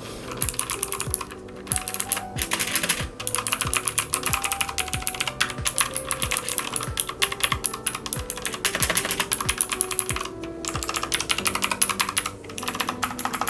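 Fast typing on a Digital Alliance Meca Warrior X RGB mechanical keyboard with clicky, tactile Outemu Green switches: a dense run of sharp key clicks with a few brief pauses. Quiet background music plays underneath.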